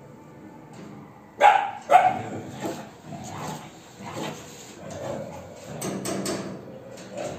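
Street dogs barking: two loud barks about a second and a half in, followed by quieter barks and a longer, lower stretch near the end.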